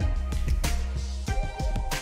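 Background music with a bass line and a steady drum beat.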